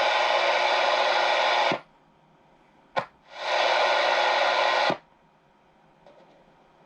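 CB radio speaker hissing loudly with static in two bursts, each cutting off abruptly, with a sharp click between them.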